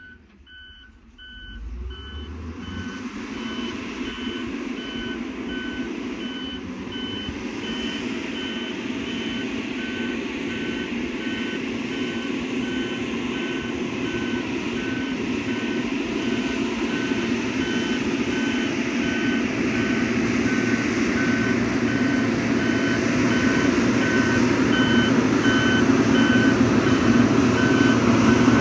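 XCMG motor grader backing up: its reversing alarm beeps steadily over the running diesel engine, and both grow louder as the machine comes closer.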